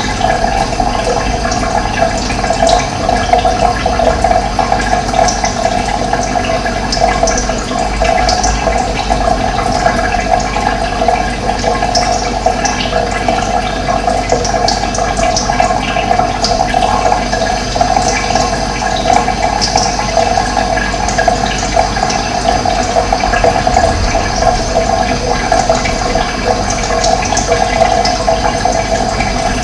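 Steady rush of running water, with short bird chirps sounding over it at intervals.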